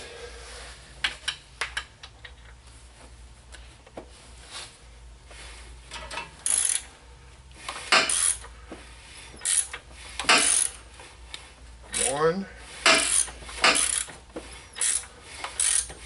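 Ratchet wrench turning a 2007 Mini Cooper S engine over by hand at the crankshaft, clicking in irregular short spurts. The engine is being rotated to check the cam timing after a timing chain replacement.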